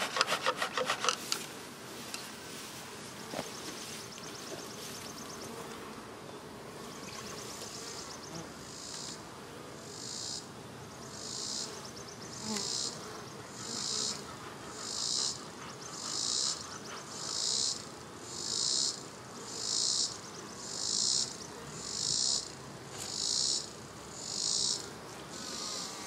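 An insect chirping in a steady rhythm, a high-pitched pulse about every second and a bit, starting about a third of the way in and growing louder. Beneath it runs a faint, steady hum.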